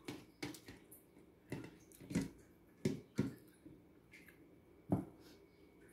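Eating sounds close to the microphone: a person chewing rice and dried salted fish eaten by hand, with about seven short, sharp mouth smacks at irregular intervals.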